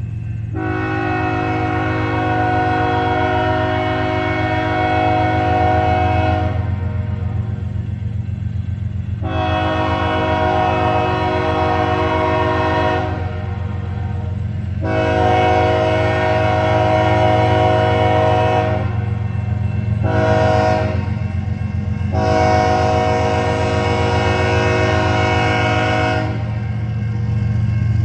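Diesel locomotive air horn, from the GE ES44AC leading the train, sounding the grade-crossing signal: four long blasts, then a short one, then the last long one held until near the end, over a steady low rumble.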